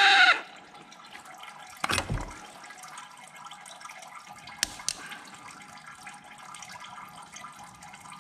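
A 19.2-volt cordless drill whirs in a short trigger burst and winds down in the first half second. Then comes a faint steady hiss, with a dull knock about two seconds in and a sharp click near five seconds as the drill and the opened plow solenoid box are handled.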